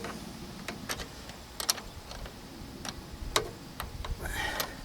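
Hand tools clicking and tapping on metal, a few irregular sharp clicks, with a short rasp from a ratcheting wrench about four seconds in.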